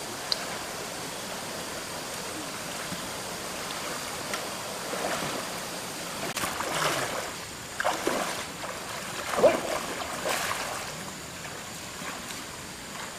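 Steady rushing of a shallow stream, with a run of irregular splashes in the middle as a person wades barefoot through the water; the loudest splash comes about nine and a half seconds in.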